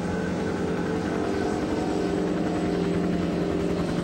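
Helicopter running steadily, with a fast rotor beat under a steady engine tone.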